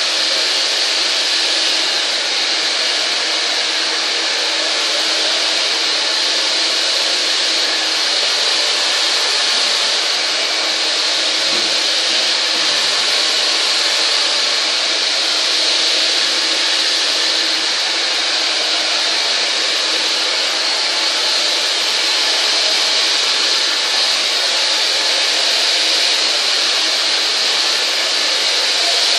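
Hand-held hair dryer blowing steadily, a loud rush of air over a steady motor hum, as it dries long hair over a brush.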